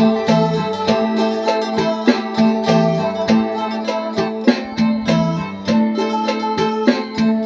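Phin, the Isan plucked lute, played in a quick run of plucked notes over a steady drone note.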